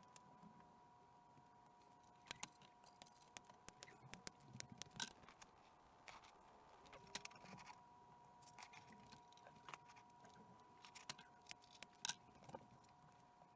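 Irregular light clicks and small metallic clinks from tools and small parts being handled on a workbench, over a faint steady whine of two high tones.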